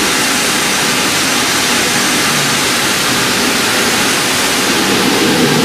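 AWS58 quarantine waste steriliser running its automatic treatment cycle as it heats toward sterilising temperature: a steady, loud rushing hiss of machinery.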